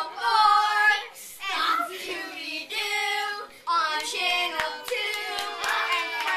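Children singing together, with a few hand claps joining in near the end.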